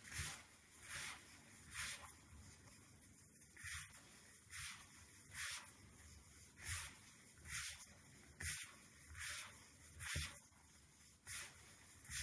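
Gloved hands working damp bath bomb powder in a bowl: faint, soft swishing rustles repeating roughly once a second, one with each squeeze and stir of the mix.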